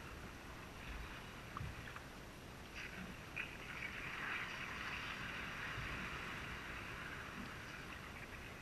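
Kayak moving through calm water: a soft wash of water splashing and trickling, louder for the second half, with a few light knocks between about one and a half and three and a half seconds in.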